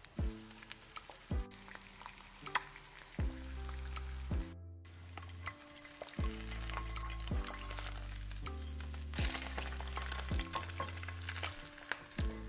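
Eggs frying in oil in a pan, with a steady sizzle that grows louder in the second half. Background music with plucked notes about once a second and a bass line runs over it, and the sound drops out for a moment just past a third of the way in.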